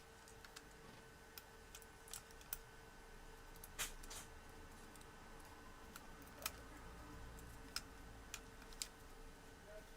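Scattered light clicks and taps of plastic parts and small tools as an Acer Aspire One D250 netbook is taken apart to free its motherboard, about a dozen in all, the sharpest a little before the middle and just after it, over a faint steady hum.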